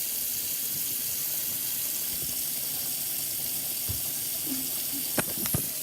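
Kitchen tap running in a steady hiss of water into a sink, with a few light knocks near the end.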